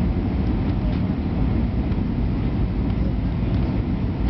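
Steady low rumble of an Airbus A320's engines and rushing air, heard inside the passenger cabin during the descent on approach.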